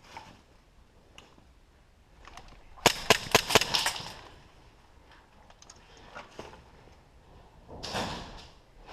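Airsoft guns firing: a rapid string of about seven sharp pops about three seconds in, with a few single pops before and after.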